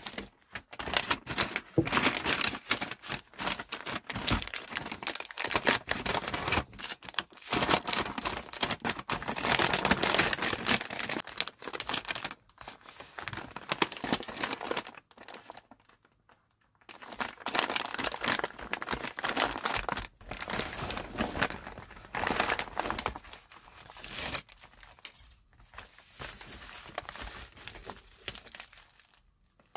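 Plastic and paper packaging crinkling and rustling in irregular bursts as hands pack orders: cellophane candy wrappers and paper, then a plastic bubble mailer near the end. There is a short lull about halfway through.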